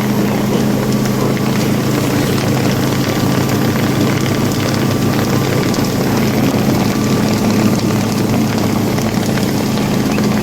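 Motorboat engine running at a steady speed, a constant low drone over rushing noise.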